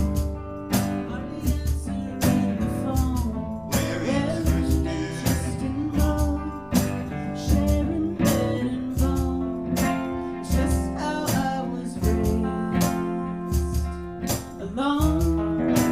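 Live band playing a song: guitar and drums keeping a steady beat, with a singing voice.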